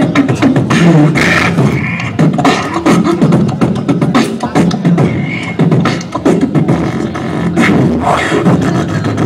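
Beatboxing into a handheld microphone: fast mouth-made drum hits over a steady low bass line.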